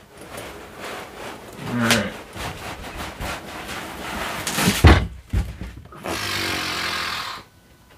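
A large cardboard box being handled while it is unpacked: the cardboard rustles and scrapes as the outer sleeve is lifted off, with a heavy thump a little before halfway. Near the end foam packing blocks are pulled out, giving a steady rubbing sound for about a second and a half that stops abruptly.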